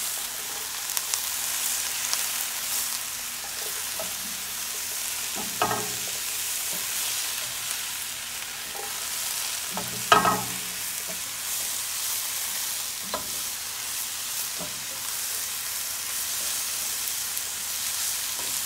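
Sliced mushrooms, red bell pepper and onion sizzling in a hot nonstick skillet as they are stirred with a spatula: a steady sizzle with a few brief knocks and scrapes of the spatula on the pan, the loudest about ten seconds in. The mushrooms have only just gone in and are still cooking down toward tender.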